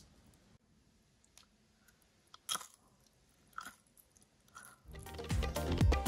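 Crisp, syrup-soaked jalebi being broken apart by hand: a few short, sharp crunches, with music coming in near the end.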